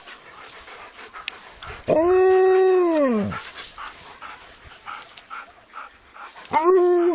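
Alaskan Malamute giving a long, drawn-out call, steady in pitch and then dropping off at the end, about two seconds in. It starts a second call near the end, over faint background noise.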